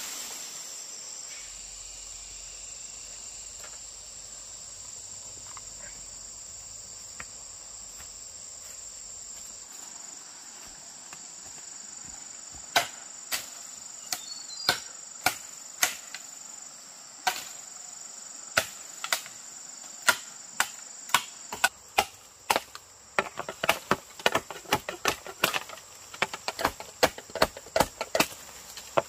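A steady, high-pitched insect drone. From about halfway, sharp knocks come roughly once or twice a second, then quicker and in clusters near the end.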